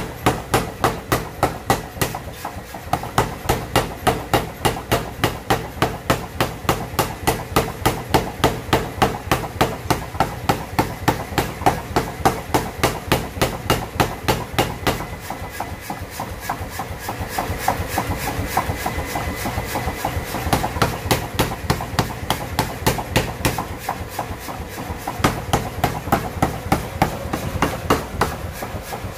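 Power hammer pounding a red-hot steel knife blade at about four blows a second, drawing out a blade forged from bearing steel. Past the middle, for about ten seconds, the blows turn fainter and blur into the machine's steady running, then heavy blows resume.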